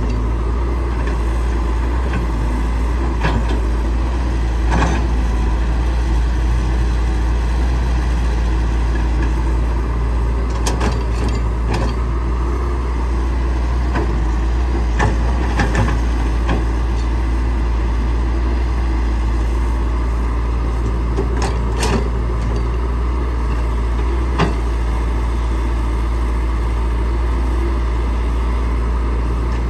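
Heavy diesel engine of a Caterpillar 312C excavator running steadily, with occasional sharp knocks and clanks.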